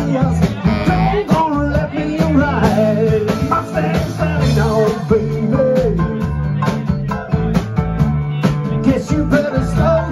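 Live band playing: saxophones, trumpet and trombone over electric guitar and drums, with singing.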